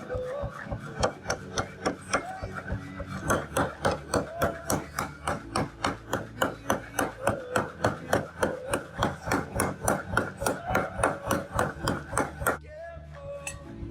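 Rapid, even hammer blows on metal during knife forging, about four a second, stopping near the end.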